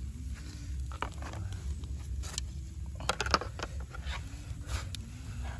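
Scattered clicks and scrapes of bamboo sticks and a grilled chicken being lifted off a wire grill and set down on a plastic plate, the loudest knock a little past halfway, over a low steady rumble.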